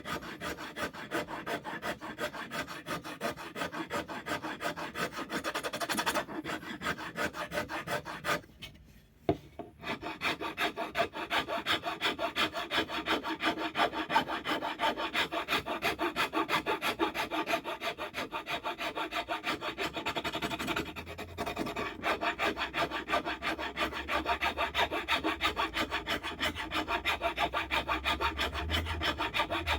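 Wood rasp worked in rapid, regular strokes over a wooden axe handle, shaving it down to fit the axe head's eye. There is a short pause about eight and a half seconds in, ended by a single knock.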